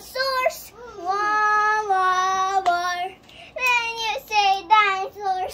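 A young girl singing unaccompanied, improvising a melody: long held notes, a short break about three seconds in, then a run of shorter notes.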